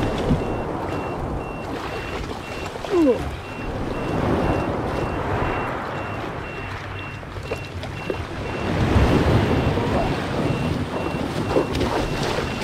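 Wind buffeting the microphone over sea and water noise, with a faint high electronic beep repeating at an even pace throughout. A short rising squeak about three seconds in.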